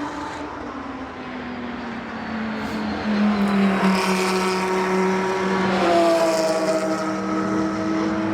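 Race car engines at speed on a circuit: one car's engine note falls in pitch as it passes. About three seconds in, louder engines come through, and around six seconds in there is another drop in pitch.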